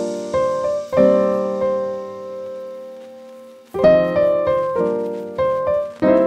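Background piano music: chords struck and left to ring and fade, with one long held chord dying away from about one second in until new chords come in near four seconds.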